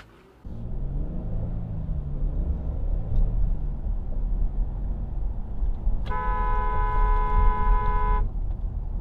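Engine and road noise from a moving car, heard from inside the cabin. About six seconds in, a car horn sounds one long blast lasting about two seconds.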